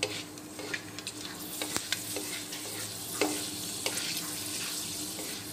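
Whole spices (nigella and fenugreek seeds, bay leaves and dried red chillies) sizzling in hot mustard oil in a wok while a wooden spatula stirs and scrapes them: the tempering stage of the dish. The hiss grows louder about a second and a half in, with scattered sharp clicks throughout.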